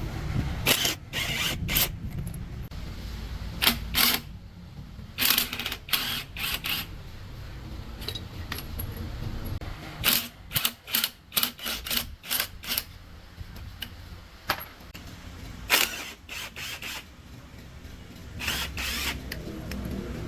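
Irregular metallic clinks and clanks of hand work on truck gearbox parts, some in quick clusters, over a low steady hum.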